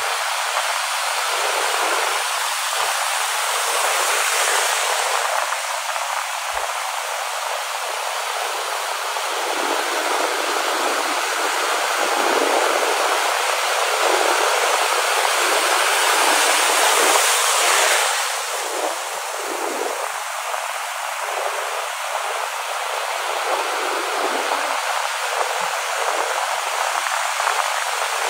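Sea surf washing and breaking, a steady rushing noise that swells gradually, drops off suddenly about eighteen seconds in, then builds again.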